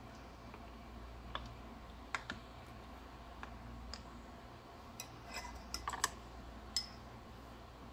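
Faint, scattered light clicks and taps, a few in the first half and a quick cluster in the second half, over a steady low hum.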